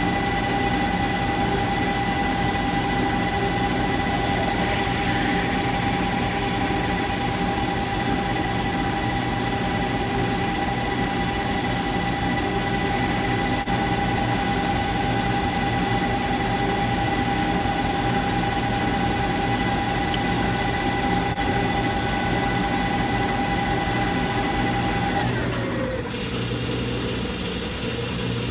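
Clausing manual lathe running with a steady whine while turning brass. A very high-pitched squeal joins for about six seconds, and near the end the whine drops to a lower pitch.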